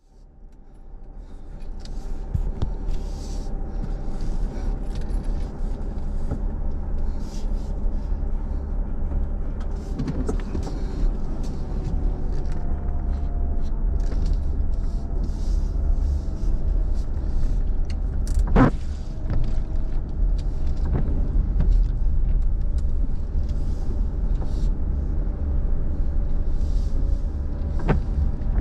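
Inside a car's cabin: steady engine and road rumble as the car rolls slowly in the rain, with scattered light taps of raindrops on the glass and roof. A loud sharp click sounds about two-thirds through, and another near the end as a windshield wiper sweeps across.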